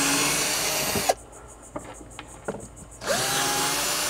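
Craftsman cordless drill with a star bit backing out the screws of an old hurricane hinge: two short runs, each starting with a quick rising whine and then holding steady. A few light clicks of the bit on the screws come in the pause between the runs.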